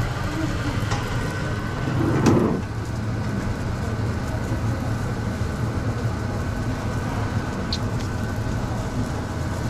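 Steady rumble of a commercial kitchen's extraction and equipment, with a faint steady whine over it. About two seconds in comes a brief louder rush as a refrigerated drawer under the grill is pulled open, and a small click near the end.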